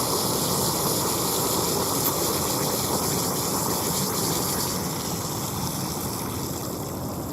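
Helicopter flying over, a loud steady noise that fades over the last few seconds as it moves away.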